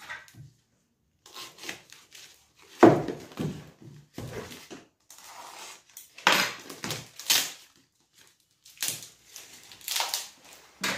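Parcel wrapping being cut open with a small blade and torn apart by hand: irregular bursts of rustling and crinkling, with a knock about three seconds in.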